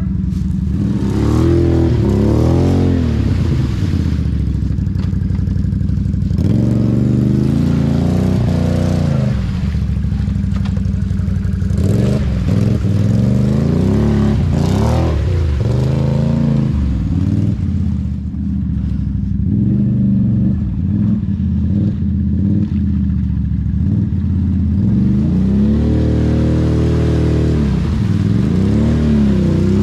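ATV engine revving up and falling back again and again as the quad is driven through a deep mud hole, the throttle worked hard to keep the tyres pulling through the mud.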